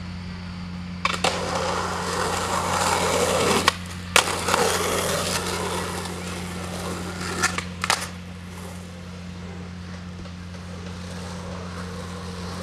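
Skateboard wheels rolling on asphalt, with sharp clacks of the board hitting the ground about a second in, twice around four seconds, and again near eight seconds. A steady low hum runs underneath.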